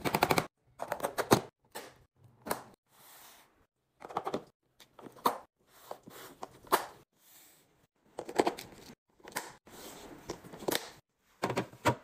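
Plastic food storage containers being handled: their clip-down lids snap shut in quick runs of sharp clicks, with knocks as the containers are set down and slid onto a fridge shelf.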